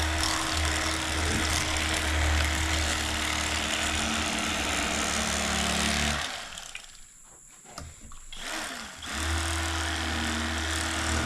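Electric fillet knife running with a steady motor buzz while filleting catfish. It cuts off about six seconds in and starts again about three seconds later.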